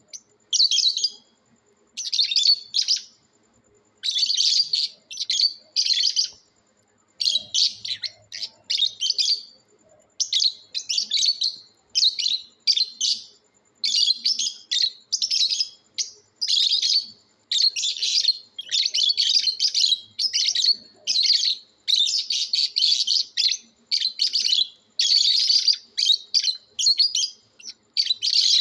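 Lovebirds chirping: rapid high-pitched chirps in bursts of a second or so, with short pauses between, repeating over and over.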